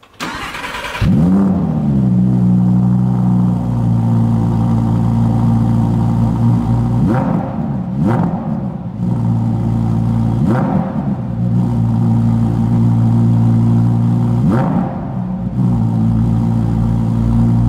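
Audi R8 V10 performance's 5.2-litre V10 engine starting, flaring up about a second in and settling into a steady idle. It is then revved in three short blips, each pitch rising and falling back to idle.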